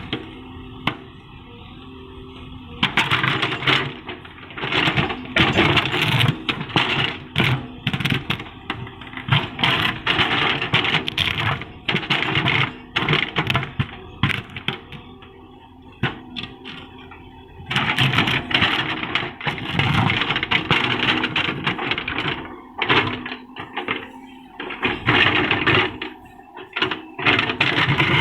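Tata Hitachi SHINRAI Prime backhoe loader's diesel engine idling, then working hard under load, with repeated knocks and scrapes from the digging. The engine noise swells loud for long stretches, about three seconds in and again about eighteen seconds in.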